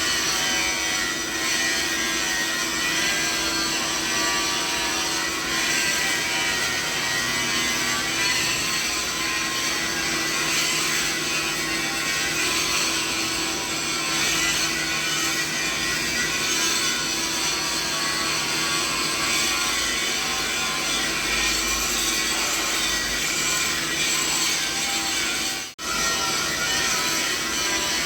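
Steady mixed machinery noise used as a tinnitus masking sound: a dense, even whir with many steady pitches layered from low-mid to high. It cuts out for a split second near the end, then carries on unchanged.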